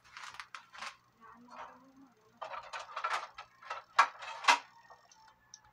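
Kitchen handling noises: a plastic packet of breading rustling and crinkling, with dishes clattering. Two sharp knocks about four seconds in, half a second apart, are the loudest.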